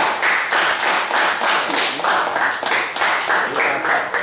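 People clapping hands together in a steady rhythm, about three claps a second.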